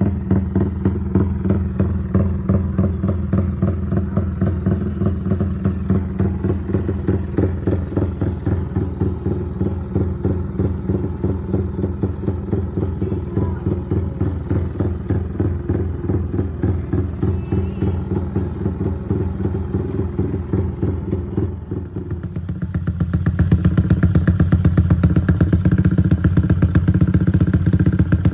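Yamaha Y15ZR's 150 cc single-cylinder four-stroke engine idling with a steady, evenly pulsing exhaust beat. About two-thirds of the way through, the sound changes abruptly, becoming louder and brighter while the beat stays steady.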